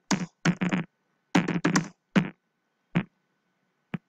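Typing on a computer keyboard: quick runs of keystrokes in the first two seconds, then single key presses about a second apart.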